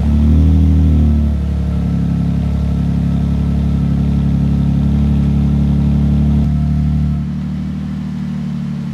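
2022 Toyota Tundra's twin-turbo V6 on a cold start through an aFe Vulcan stainless cat-back exhaust: just after it fires, the revs flare up and fall back over about a second, then it settles into a steady high cold idle. About seven seconds in, the idle steps down and gets a little quieter.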